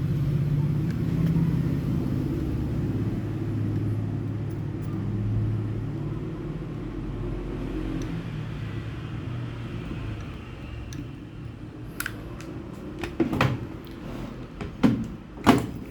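A steady low rumble that fades after about ten seconds, then a series of sharp clicks and knocks near the end, typical of tools or parts being handled on a workbench.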